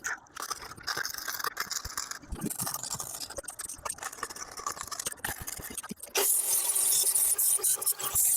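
Angle grinder with a flap disc working steel: irregular scraping and rattling at first, then about six seconds in a louder, steady grinding hiss.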